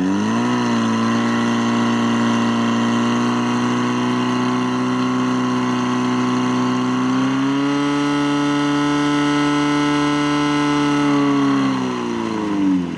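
Portable fire pump's engine running hard at high revs: its pitch climbs at the start, steps up again about halfway through, holds steady, then winds down near the end as it is throttled back.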